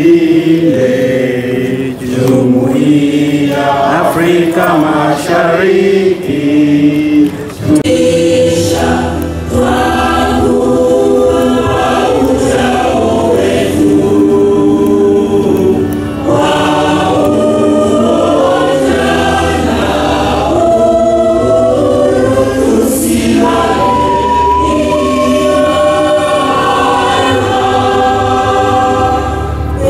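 A choir singing an anthem in several-part harmony. The singing is uneven at first and settles into full, steady harmony about eight seconds in.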